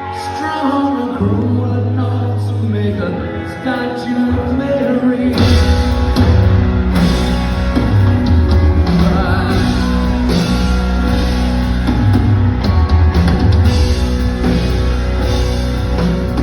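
A rock band playing live with singing. A lighter opening gives way about five seconds in to the full band, with drums and bass in hard.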